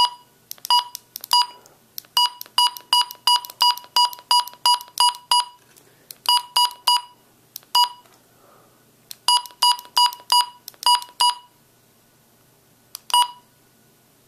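Key beeps of a Midland HH54VP weather radio: a short, high electronic beep with each button press, coming in quick runs of about three a second with short pauses between runs, as the clock's hour setting is stepped forward.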